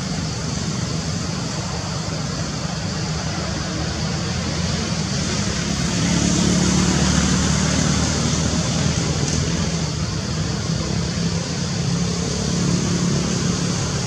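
Steady outdoor background noise: a low, traffic-like rumble under a high hiss, swelling a little midway.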